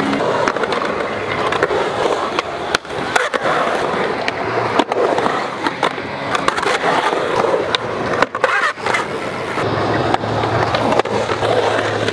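Skateboard wheels rolling on a concrete bowl, with trucks grinding on the metal coping and several sharp clacks of the board landing.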